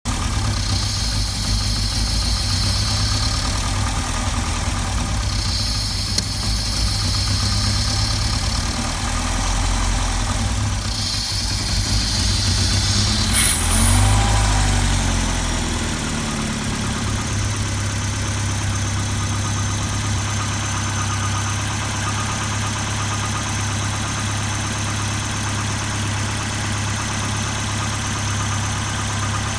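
Volvo car engine idling rough. About halfway through its pitch rises and falls briefly, then it settles back to a steady idle.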